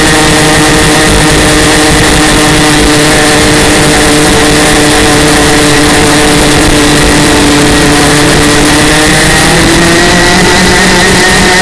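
A 125cc racing hydroplane's engine running loud at speed, with wind and water rushing past the hull. The engine note sags slightly, then picks up again near the end.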